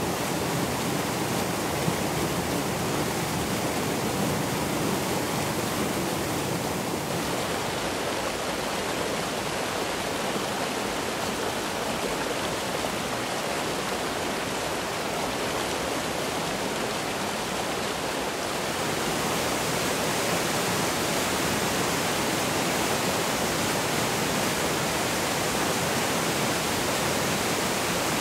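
Rushing white water of a mountain stream and waterfall pouring over rocks, a steady rush with no other sound. Its tone shifts slightly about seven seconds in, and it grows a little louder and brighter about eighteen seconds in.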